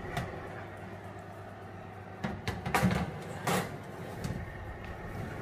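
Metal baking tray sliding along the runners of a Zanussi oven, with a few scrapes and clunks about two to three and a half seconds in. A steady low hum runs underneath.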